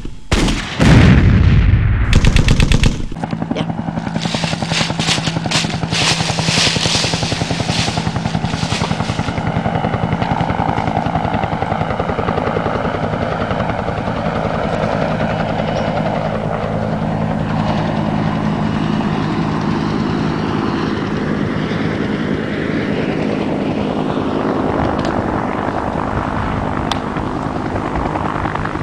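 Loud bursts of gunfire for the first few seconds, then a helicopter running steadily, its rotor chopping fast over a low engine hum.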